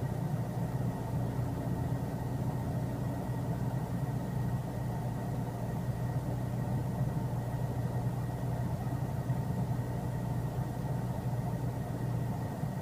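Steady low mechanical hum, like an engine or motor running at idle, with a faint high whine held throughout and no breaks or changes.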